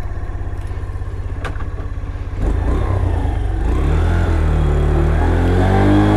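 X-Pro Vader 125cc single-cylinder engine running at a steady, pulsing idle, then louder from about two and a half seconds in, with the revs rising and falling near the end.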